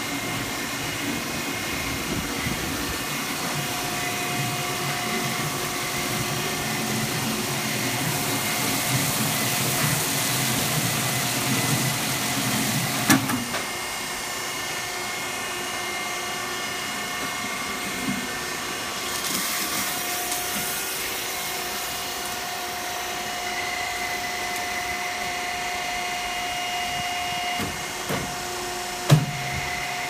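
HCC 150A aluminium-chip briquetting press running: a steady mechanical hum and whir with a couple of steady tones. A heavier low rumble in the first half stops suddenly with a sharp clack about halfway through, and another sharp clack comes near the end.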